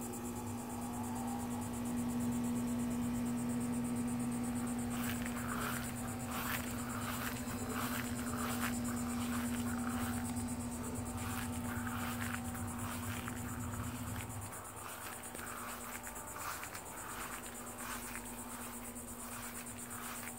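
Outdoor insects chirping in rapid repeated strokes over a steady low mechanical hum; the hum cuts off about two-thirds of the way through.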